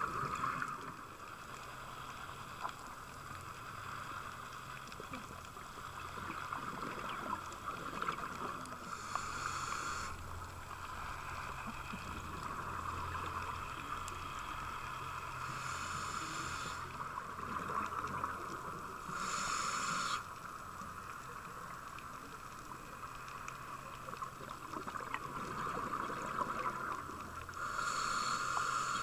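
Underwater sound on a scuba dive: a steady hiss, broken four times by about a second of bubbling from a diver's exhaled regulator bubbles.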